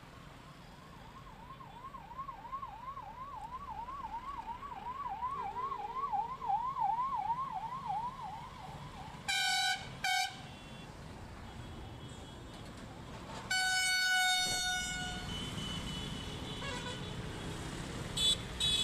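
Escort vehicle's siren sounding, its pitch sweeping up and dropping about three times a second, then fading out. Then two short horn honks, a longer horn blast, and more short honks near the end, over road traffic.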